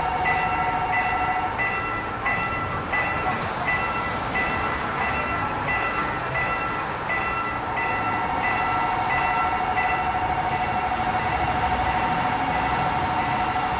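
Level crossing warning bell ringing in an even repeating pattern, about one and a half strokes a second, over a steady noise.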